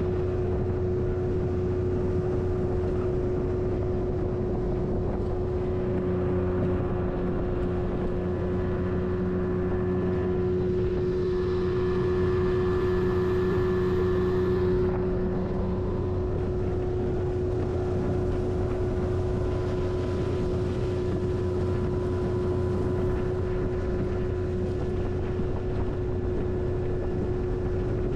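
Fishing boat's outboard motor running at a steady speed under way, a constant drone that holds one pitch throughout, a little louder for a few seconds around the middle.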